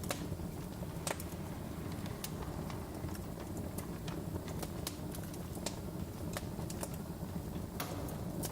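Wood fire crackling in a fireplace: irregular sharp pops and snaps, a dozen or more, over a steady low rumble of the burning logs.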